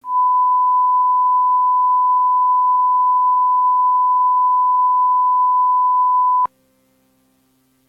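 Emergency-alert attention tone: a single steady beep near 1 kHz held for about six and a half seconds, then cut off abruptly with a click, leaving near silence with a faint hum.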